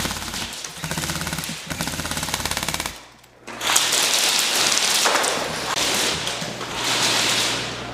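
Airsoft electric guns firing on full auto: a rapid, even rattle for a couple of seconds, a short break about three seconds in, then denser, hissier bursts that carry on until near the end.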